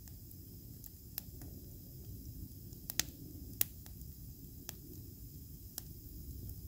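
Wood campfire burning, crackling with sharp, irregular pops over a low steady rumble; the two loudest pops come about three seconds in, half a second apart.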